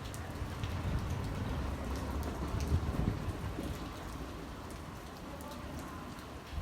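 Steady rain falling, with scattered individual drops ticking and a low rumble underneath.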